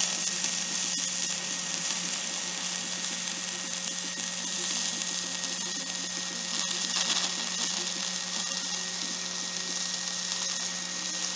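Stick-welding arc from a CHEM-WELD 7100 electrode on rusty steel, crackling and sizzling steadily as a bead is laid, with a steady low hum underneath.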